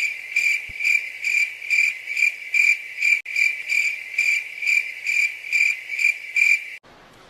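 Cricket chirping sound effect, the stock 'crickets' gag for an awkward silence: a steady high chirp about three times a second. It cuts off suddenly near the end.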